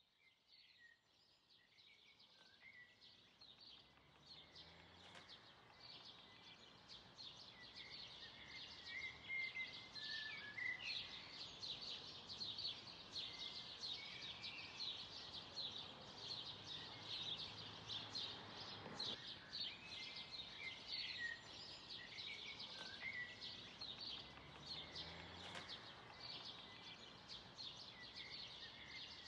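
Faint outdoor field ambience: a dense chorus of quick high chirps with short whistling bird calls, fading in over the first several seconds and then holding steady.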